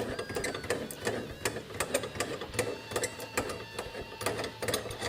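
Shifter handle being unscrewed by hand from its threaded shaft: a run of small, irregular metallic clicks and ticks over a faint low hum.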